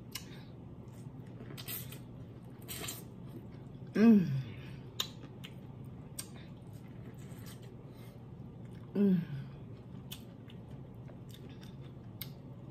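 Close-miked eating: a person chewing corn on the cob, with many sharp mouth clicks and smacks, and a short hummed 'mmm' falling in pitch about four seconds in and again about nine seconds in.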